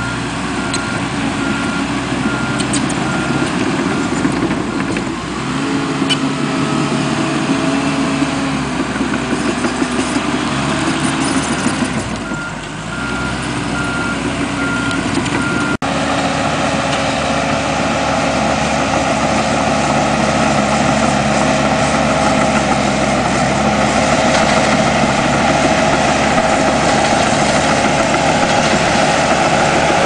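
Komatsu D39 crawler dozer's diesel engine running steadily, with its reversing alarm beeping in two stretches: in the first few seconds and again just before halfway. After a brief break in the sound about halfway, the engine runs louder and steadier as the dozer pushes a blade load of dirt.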